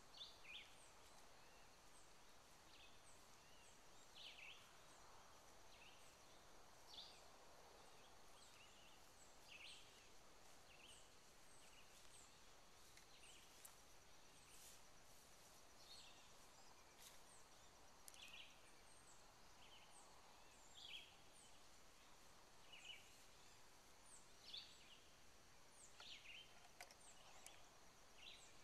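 Faint open-air ambience of several birds chirping and calling in short, scattered notes, over a steady faint high-pitched hum.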